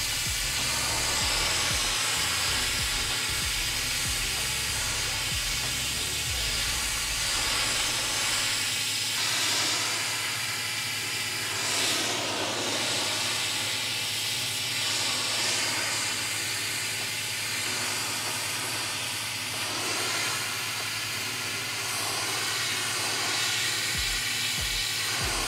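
Steam cleaner lance hissing steadily as it blasts cement stains off new brickwork, over a steady low hum from the machine.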